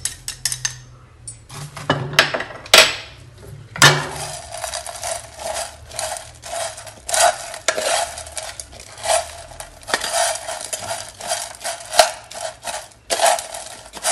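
Chopsticks stirring and tossing dried small fish and minced garlic in a metal frying pan: continuous scraping and clicking against the pan, with a few louder knocks about two to four seconds in.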